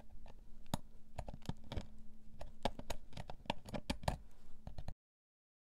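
Irregular small clicks and taps of a screwdriver working out the Torx screws of a handheld GLONASS navigation device's case, stopping abruptly about five seconds in.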